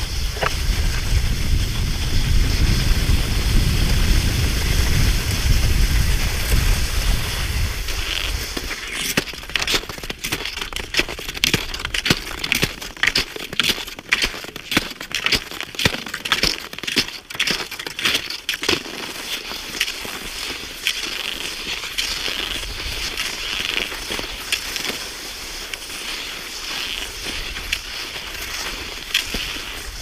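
Snow crunching in irregular strokes under someone moving across it, densest from about eight to twenty seconds in, with a low rumble during the first eight seconds or so.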